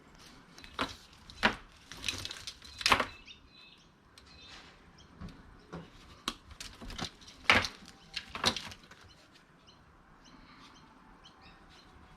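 Irregular clicks and knocks of electrical cords and their plastic plugs being handled and sorted for scrap, in two clusters of sharper clacks.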